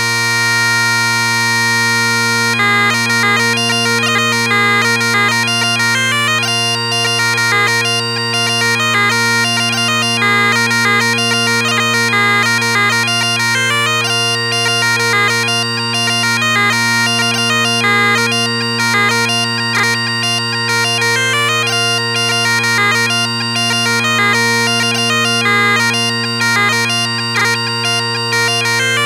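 Bagpipes in B flat playing a brisk jig. Steady drones sound under the chanter, which holds one note for about two seconds and then breaks into a fast, ornamented melody.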